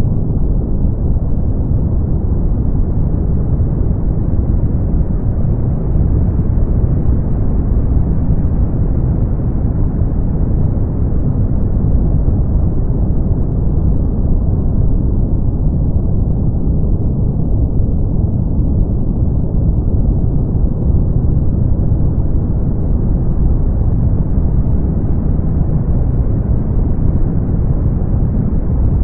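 Brown noise: a steady, deep hiss with most of its energy in the low end. Its top edge slowly grows brighter and duller again, about once every twenty seconds, while the loudness stays even.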